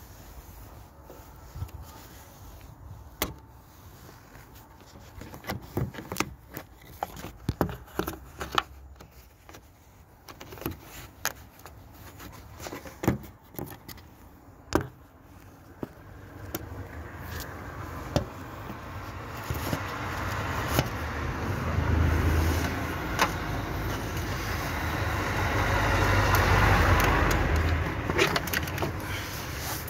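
Scattered light clicks and knocks of handling in an engine bay. Then a vehicle passing in the street, its noise swelling over about ten seconds and fading away near the end.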